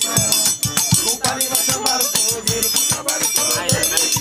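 Live forró pé de serra music with a metal triangle struck in a steady fast rhythm, its ringing high tones over low drum beats and a melody line.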